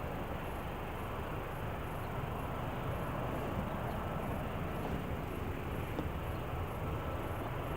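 Steady low rumble and hiss of airport ambience, with no distinct events.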